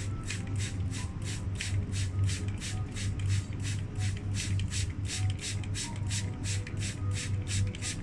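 Plastic trigger spray bottle squeezed rapidly, misting water: a quick, even run of short hissing sprays, about four a second.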